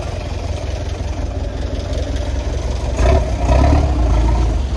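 Tata goods truck's diesel engine idling, with a steady low rumble that grows louder about three seconds in.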